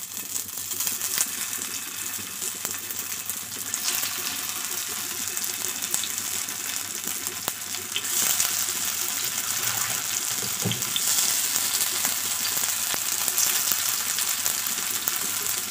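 Soybean cutlets shallow-frying in hot oil on a flat griddle: a steady crackling sizzle. It grows louder in steps, about 4 and 8 seconds in, as more patties are laid in.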